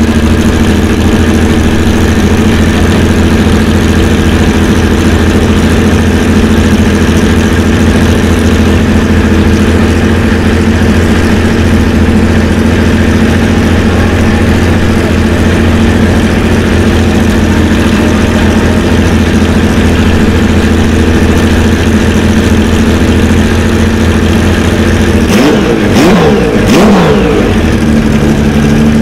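Porsche 917K's air-cooled flat-12 race engine idling loudly while warming up. Near the end it is blipped for a couple of seconds, the pitch swooping up and down with a few sharp cracks, then it settles back to idle.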